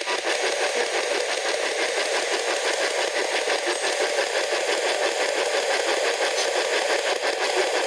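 P-SB11 spirit box sweeping through radio stations: a steady hiss of static that stutters rapidly as it scans.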